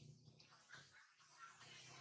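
Near silence: faint background noise with a low, steady hum.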